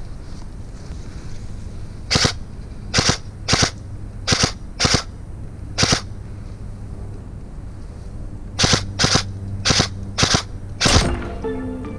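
Krytac MK2 CRB airsoft electric rifle firing single shots: eleven sharp cracks in two strings, six about half a second to a second apart, a pause of about three seconds, then five more.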